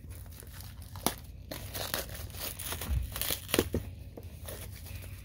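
Clear plastic shrink wrap crinkling and tearing as it is peeled off a boxed set by hand, in a run of irregular crackles.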